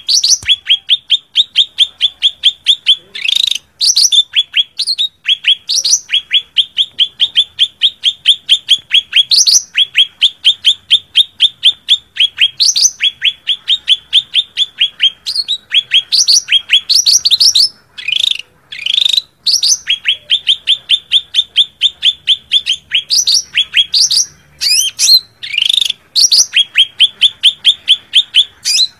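Cucak ranting leafbird giving its fighting call: long runs of rapid, sharp repeated notes, several a second, broken now and then by louder rising whistles. It is a rival-challenging call used as a lure to draw other males in.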